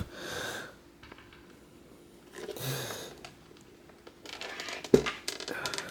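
Handling noises from a Galaxy 16-inch oscillating table fan being held upside down: soft rustles, then a cluster of clicks and a sharp knock about five seconds in as the heavy fan is shifted.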